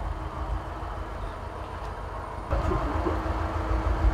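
Car engine idling, a steady low rumble that gets louder after a cut about two and a half seconds in.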